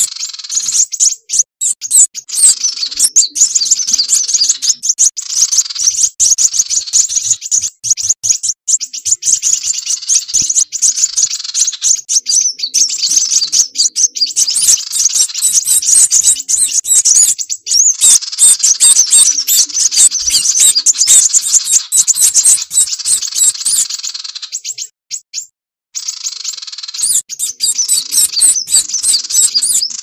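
Bird-lure recording of kolibri wulung sunbird calls mixed with sirpu flowerpecker calls: dense, rapid, high-pitched chirping and twittering that breaks off for about a second some 25 seconds in.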